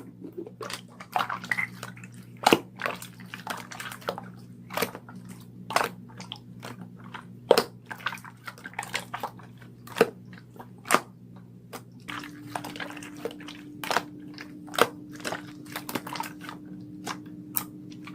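Clear yellow slime being squished and pressed by hand, making irregular sticky clicks and pops, several a second.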